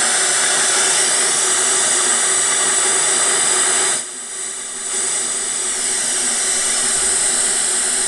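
Pseudorandom white noise from an Arduino Uno's linear-feedback shift register, sent out through PWM pins and a capacitor into small computer speakers: a steady loud hiss with faint steady tones running through it. This is what is guessed to be the high-byte output alone. The hiss drops in level for about a second, some four seconds in, then returns.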